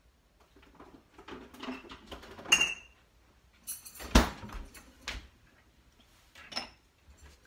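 Kitchen clatter as things are handled and moved: some rummaging, a clink that rings briefly about two and a half seconds in, a sharp knock about four seconds in, another knock a second later, and a short ringing clink near the end.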